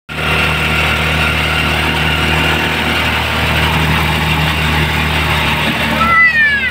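Motorcycle engine of a Philippine tricycle running steadily while under way, heard from the sidecar. Near the end a child's high voice calls out briefly, falling in pitch.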